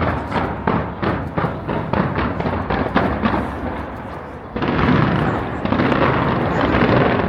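Aerial fireworks bursting in quick succession, about three sharp bangs a second. About four and a half seconds in, they give way to a denser, continuous barrage of crackling explosions.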